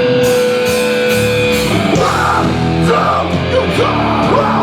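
Hardcore punk band playing live, loud: a held guitar note rings at first, then the full band comes in with distorted guitars, bass and drums about two seconds in as the song starts.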